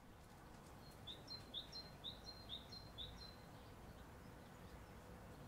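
A small songbird singing a quick run of about six repeated high notes, roughly two a second, starting about a second in, over a faint steady background hush.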